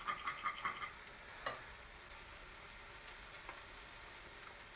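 Breaded chicken frying in a pan, sizzling, with a rapid crackle during the first second before settling to a faint, steady sizzle. A single click about a second and a half in.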